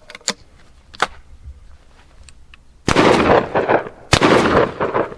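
Two shots from a 20-gauge Citadel Boss side-by-side double-barrel shotgun, fired about a second apart, one from each barrel, each trailing off over most of a second. A couple of small clicks come before the shots.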